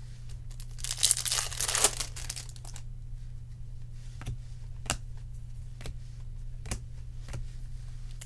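A trading card pack's wrapper crinkling and tearing open about a second in. Then cards are handled and flipped through, with several sharp little clicks of card edges.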